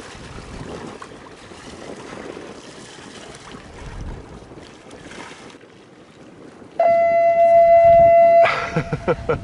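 Wind and water noise for about five seconds, then a single loud, steady horn blast lasting about a second and a half, as from a departing yacht's horn. Music starts just after the blast.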